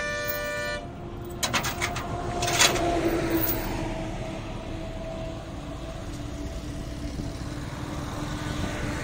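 A vehicle horn sounds briefly at the start, then a few sharp knocks about two seconds in, over the steady hum of a running vehicle engine and traffic noise.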